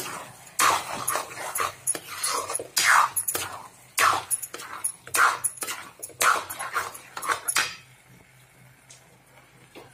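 A steel spoon scraping and stirring thick, nearly dry carrot halwa with ghee in a steel kadai. It makes a quick run of rasping strokes, about two to three a second, that stops about two seconds before the end.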